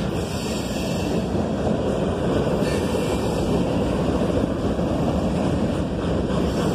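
Freight cars, covered hoppers and an autorack, rolling past at close range: a steady rumble of steel wheels on rail.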